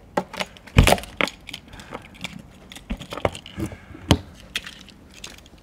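Clicks and knocks of a motorhome's outside service hatch being shut and locked, with a sharp knock about a second in and another near four seconds.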